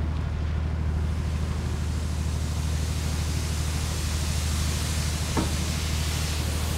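Steady low drone of shipboard machinery under a hiss of wind and sea. A brief rising chirp about five seconds in.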